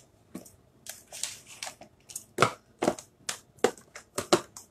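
Small plastic chalk paste jars and craft tools clicking and clacking as they are handled, set down on a tabletop and rummaged in a plastic caddy: a quick, irregular string of sharp clicks, with a couple of louder knocks near the middle.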